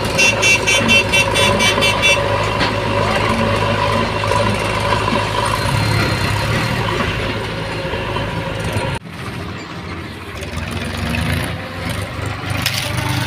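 Mahindra tractor's diesel engine running steadily under load as it pulls a trolley heaped with mud. A rapid high-pitched beeping sounds over it for the first two seconds, and the sound drops abruptly about nine seconds in before the engine carries on.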